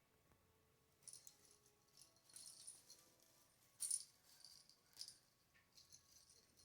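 Faint jingling and rattling from a Christmas tree jostled by a playing cat, in scattered bursts starting about a second in and loudest a little past the middle.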